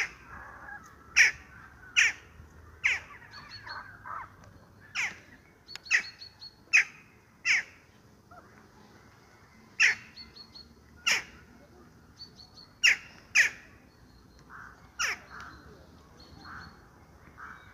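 Western jackdaws (Coloeus monedula) giving short, sharp calls, about fifteen of them at irregular intervals of roughly a second, each call dropping quickly in pitch.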